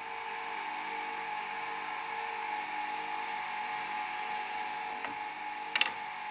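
Steady machine hum with a high, even whine, like a running electric motor. A brief sharp knock comes near the end.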